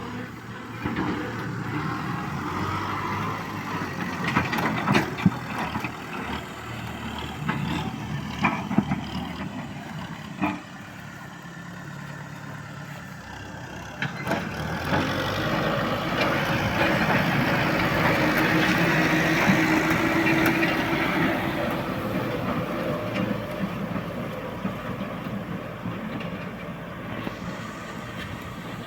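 Kubota M6040S tractor's diesel engine running under load while ploughing, with scattered knocks and clatters in the first half. It grows louder about halfway through, then eases off near the end.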